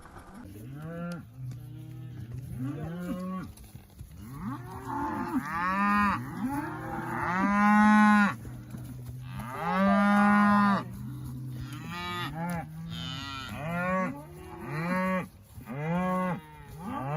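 A herd of cattle mooing as it is driven along, many calls overlapping one another. Two long calls about eight and ten seconds in are the loudest.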